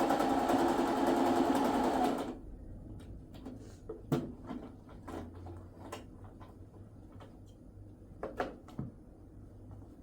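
A small motor-driven machine runs with a fast, steady rhythm and stops abruptly about two seconds in. After it stops, a few light clicks and knocks follow in a quiet room.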